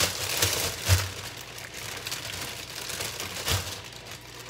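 Crinkling of a clear plastic bag of mini sweet peppers being handled and opened, with two dull knocks, about a second in and again about a second before the end.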